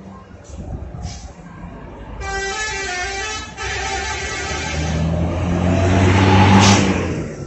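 A musical multi-tone 'telolet' horn sounds for about a second and a half, a couple of seconds in. Then a heavy vehicle passes close by, its engine running louder until near the end and then fading.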